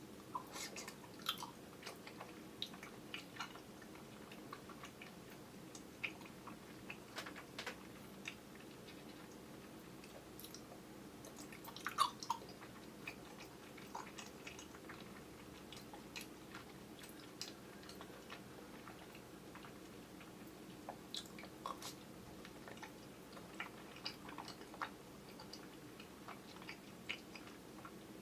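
Chewing and mouth sounds of someone eating soft, chewy kyoho grape jelly, heard as scattered wet clicks and smacks, the loudest about twelve seconds in. The sound is picked up by a camera's built-in microphone over a faint steady hum.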